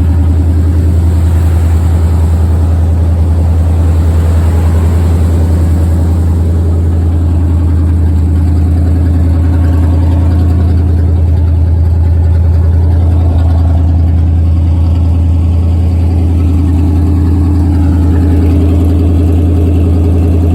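Pickup truck engine idling steadily through long-tube headers, collectors and Dynomax Race Bullet mufflers, a deep, even exhaust note that is quieter than an open header: 'it ain't that loud no more'.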